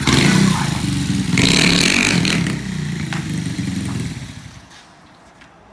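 Small moped engine running, louder for about a second from about a second and a half in, then dying away about four seconds in.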